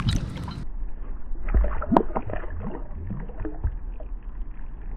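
Scattered light knocks and water sounds around a fishing kayak. The sound changes abruptly less than a second in, then a sharp knock comes about two seconds in.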